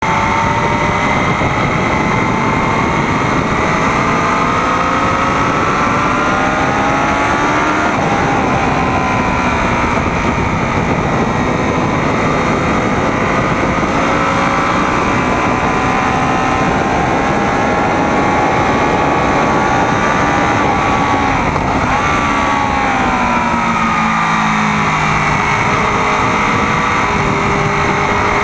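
Sport motorcycle engine running hard at high revs on a lap, heard from an onboard camera on the bike with heavy wind rush. Its pitch climbs, drops back about a third of the way in and again past two-thirds, then falls in several steps near the end as the bike slows for a corner.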